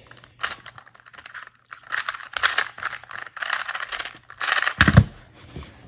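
2x2 speed cube, fitted with a standard screw-and-spring mechanism, clicking and clacking as its layers are turned quickly in a timed solve. A dull thump about five seconds in is the loudest sound.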